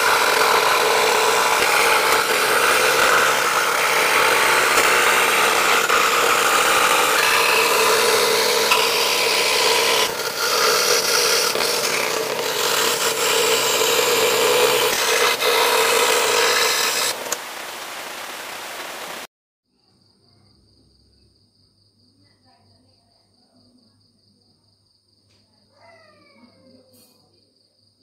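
Benchtop electric scroll saw running, its blade cutting through a paper-patterned plywood sheet: a steady motor hum with rasping blade noise, which stops about 17 seconds in. After an abrupt cut near 19 seconds only faint, steady high trilling remains, with a few short falling chirps near the end.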